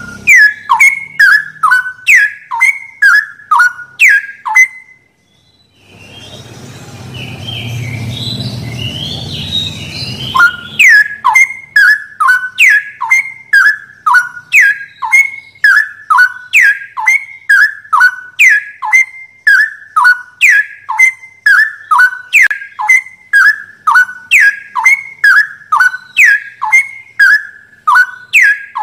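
Straw-headed bulbul (cucak rowo) singing a rapid, loud series of downward-sliding whistled notes, about two a second. Around five seconds in the song stops for a moment of silence, then a stretch of low rumbling noise with faint chirps, before the whistling resumes.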